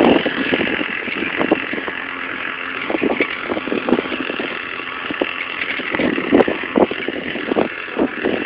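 A pocket bike's small engine running steadily, with irregular scuffs and knocks close to the microphone.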